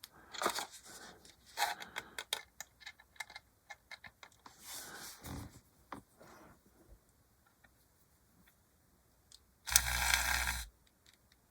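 Scattered light clicks and taps of handling, then near the end about a second of a small handheld electric rotary tool running with a bit drilling through plastic.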